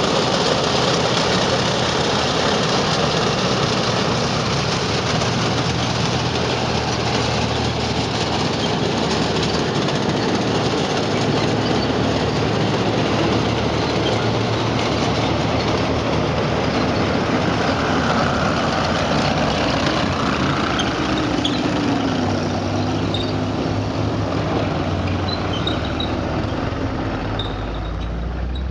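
Tanks, among them an IS-3 heavy tank, driving on concrete: heavy engines running with the clatter of steel tracks, steady and loud. About three quarters of the way in, an engine note slides down in pitch.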